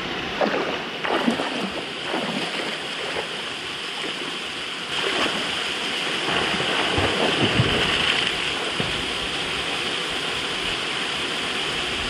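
Small waterfall pouring into a river pool, a steady rush of water, with splashing from a person swimming through the pool during the first half.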